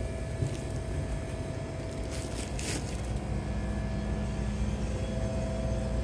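Steady low rumble with a constant electrical hum, the room tone of a small grocery store lined with running glass-door refrigerated cases. A couple of faint brief rustles come about two to three seconds in.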